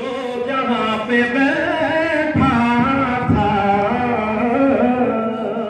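A man's voice chanting a line of verse in a long, drawn-out melodic style, amplified through a microphone and loudspeaker.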